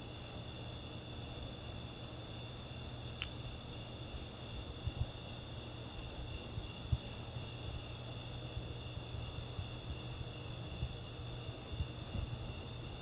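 Quiet background ambience: a steady high-pitched trill over a low hum, with one sharp click about three seconds in.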